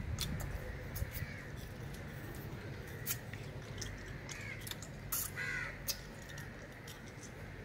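Crows cawing a few times, with short wet clicks and smacks of hard lollipops being sucked.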